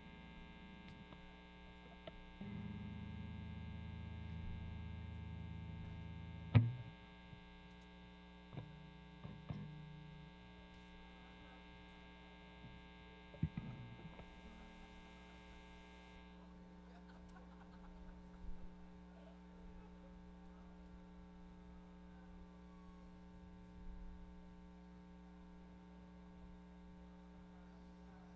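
Steady electrical mains hum with a buzz of many overtones, from the recording chain. A sharp click about six and a half seconds in, and a few fainter knocks later.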